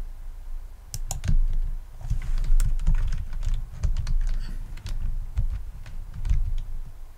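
Typing on a computer keyboard: irregular clicking keystrokes starting about a second in, each with a low thud.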